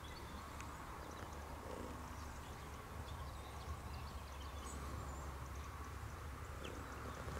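Quiet outdoor ambience: a steady low rumble with faint scattered ticks and short high chirps.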